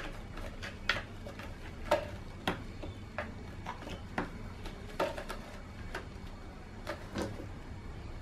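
Irregular light clicks and taps, about a dozen spread unevenly, from a cat scrambling and playing on a carpeted cat tree.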